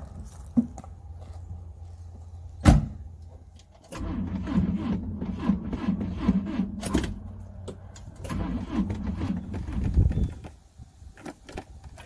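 An old Volvo station wagon's starter cranks the engine in a rhythmic low chug for about six seconds, then stops without the engine catching: a car that won't start, with a weak battery. Before the cranking there is a steady low hum and one loud sharp click.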